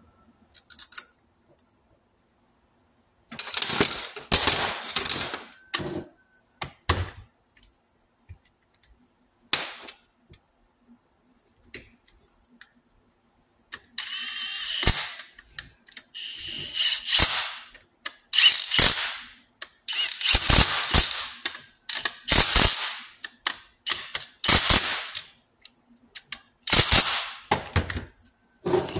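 Compact cordless impact wrench hammering in a string of short bursts, each about a second long, as bolts are run out of a tractor's hydraulic multiple control valve housing.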